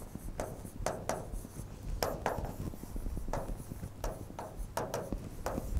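Chalk scratching and tapping on a chalkboard as words are written by hand, in a string of short strokes about two a second.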